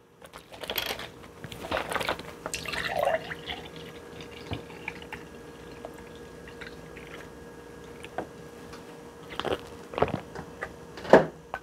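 Soy milk dripping and sloshing as it is handled, with scattered light clicks and knocks. The louder ones come in the first three seconds and near the end.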